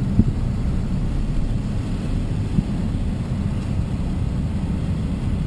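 Car idling, a steady low rumble, with a couple of faint knocks, one just after the start and one about halfway through.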